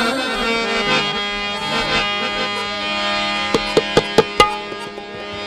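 Instrumental break in Saraiki folk dance music: steady held notes, joined by a quick run of hand-drum strokes past the middle.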